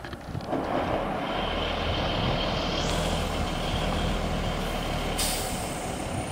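M923 5-ton 6x6 military cargo truck's diesel engine running steadily as the truck drives past, with a faint steady whine. A sudden hiss starts about five seconds in.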